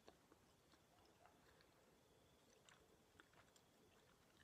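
Near silence with a few faint, scattered mouth clicks from someone chewing a chewy fruit candy with the mouth closed.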